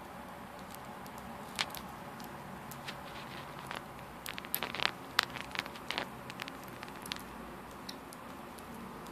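Small parrots (a budgie, a lineolated parakeet and a parrotlet) cracking millet seeds off a millet spray with their beaks: a scatter of sharp little clicks and crackles, thickest between about four and six and a half seconds in.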